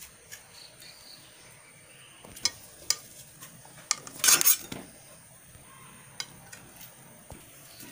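Kitchen knife cutting a block of paneer on a stainless steel plate. The blade clicks against the steel a few times and scrapes across it once, loudest, about four seconds in.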